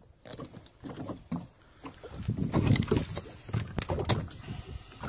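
A knife blade scraping and prying at barnacles on a sea turtle's shell: repeated sharp clicks and scrapes, with a louder, duller stretch of handling noise in the middle.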